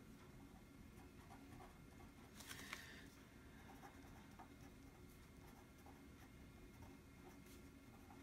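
Faint scratching of a Mambi black-and-white pen writing on planner paper, with one brief louder scratch about two and a half seconds in.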